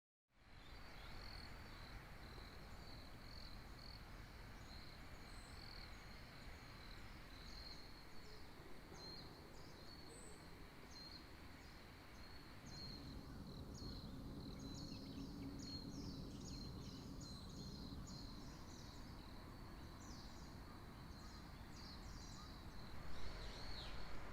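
Faint morning outdoor ambience: many small birds chirping in short calls over a steady high-pitched trill, with a low rumble coming in about halfway through.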